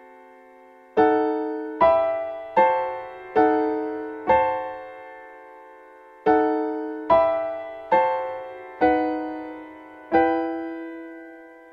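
Solo piano playing a slow melody of single notes, each struck and left to ring and fade. There are two phrases of five notes with a short pause between them, and the last note is held longer.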